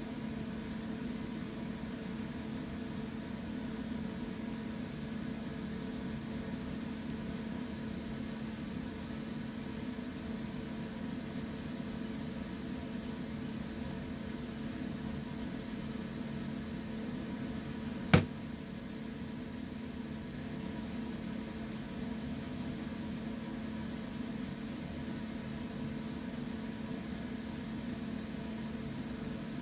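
Steady electric hum of a running appliance, holding a low tone. A single sharp click cuts through it about two-thirds of the way in.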